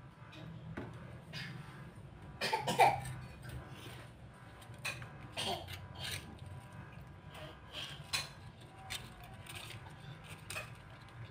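Cooking oil heating in an aluminium wok, with faint scattered ticks and crackles over a low steady hum as it starts to bubble. A short cough sounds about three seconds in.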